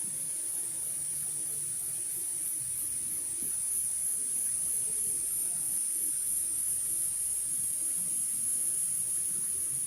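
Steady, high-pitched chorus of forest insects, faintly pulsing, over the soft sound of running water.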